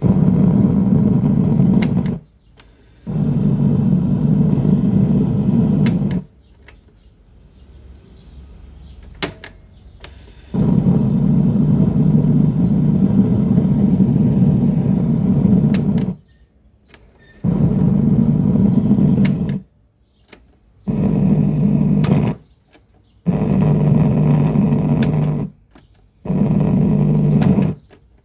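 Small electric motor in the cassette mechanism of a Sony CFS-710S boombox running with a steady hum, switched on and off six times in runs of about two to six seconds.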